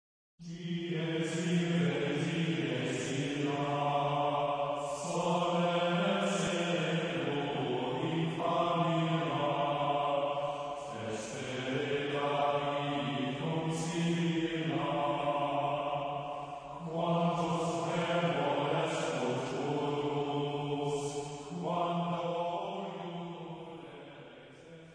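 Chanted vocal music over a steady low drone, sung in held phrases a few seconds long, fading out near the end.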